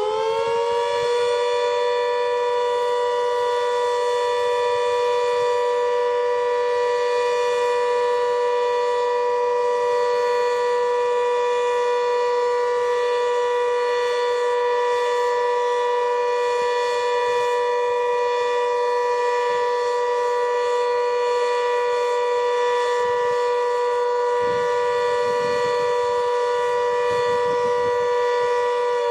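GP8 motor siren sounding on test: it finishes winding up about a second in, then holds a steady two-note wail at full pitch. Near the end it begins to wind down.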